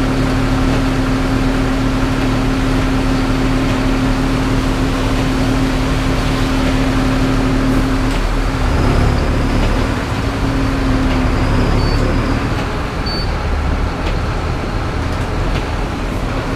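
Cab noise of a city bus driving in heavy rain: steady engine and road rumble under a hiss of rain and spray, with a steady drone that breaks up and wavers about halfway through.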